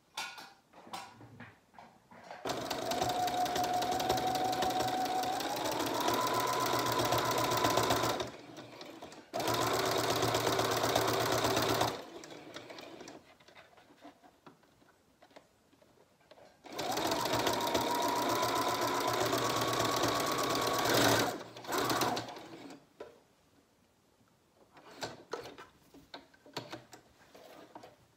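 Computerized domestic sewing machine stitching a seam across fabric in three runs of a few seconds each, with short pauses of light handling clicks between them. The motor's whine steps up in pitch as it speeds up during the first and last runs.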